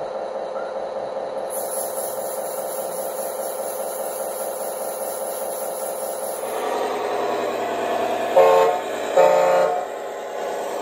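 Sound module of a radio-controlled Fendt 1050 tractor model giving a steady simulated engine sound, then two loud horn toots about a second apart near the end.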